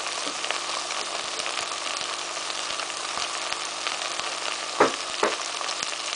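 Shredded cabbage, peppers, carrot and potato frying in a pot with a spoonful of flour stirred in, a steady sizzle. Two short knocks come about five seconds in.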